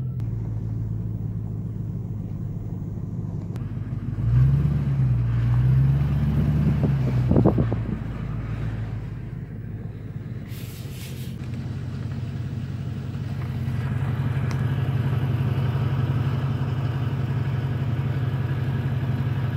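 A pickup truck's 5.4-litre V8 engine running as the truck drives on a gravel and mud road, heard from the cab. The engine rises and falls in pitch as it is given throttle between about four and eight seconds in, and runs louder again near the end.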